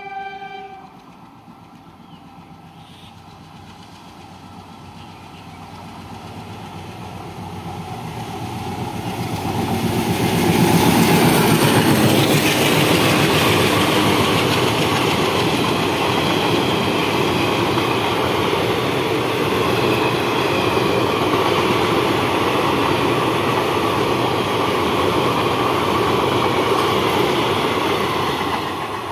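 An express train hauled by a WDM3D ALCO diesel locomotive runs through the station at speed. A horn blast ends about a second in. The train's noise then grows louder for about ten seconds as it approaches, the coaches clatter past steadily on the rails, and the sound begins to fall away near the end as the last coach passes.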